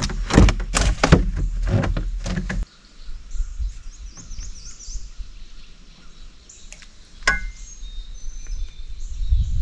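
A quick run of sharp knocks and thumps over a low rumble, like handling and bumping about in a small boat, that cuts off abruptly about two and a half seconds in. After that there are birds chirping in the background and a single sharp click.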